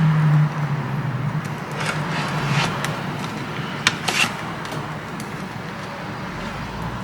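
A few light clicks of a USB-C charger plug being handled and pushed into the laptop's port, over a steady low hum.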